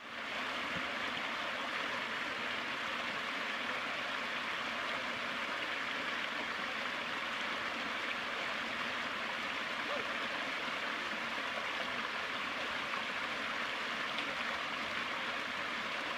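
Shallow mountain stream running over rocks, a steady rushing and splashing of water.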